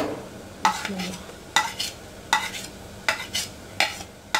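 Onions and ginger-garlic paste frying in hot oil in an aluminium pressure cooker, sizzling as a metal spoon stirs them, with sharp clinks of the spoon against the pot a little more than once a second.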